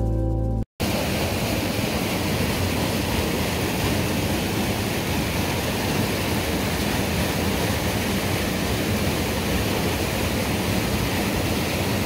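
Steady rushing of water pouring through a concrete culvert channel, after guitar music that cuts off under a second in.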